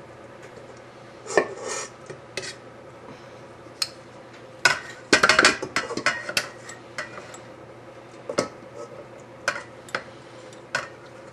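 Stainless steel mixing bowls knocking and clinking against each other as shredded chicken is tipped from one into a stand mixer's bowl and scraped out by hand. The knocks come singly, about a second apart, with a busy cluster about five seconds in.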